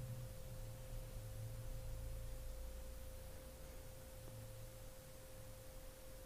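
Quiet room tone: a faint steady single-pitched tone over a low electrical hum.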